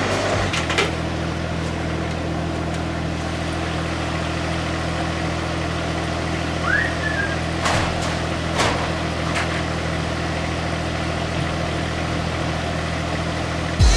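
Engine of a truck-mounted forklift idling steadily, with a few light knocks about eight to nine and a half seconds in and a short squeak just before them.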